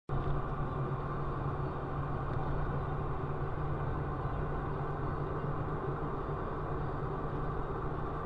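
Steady engine drone and tyre noise inside a vehicle driving on a wet, rain-soaked road.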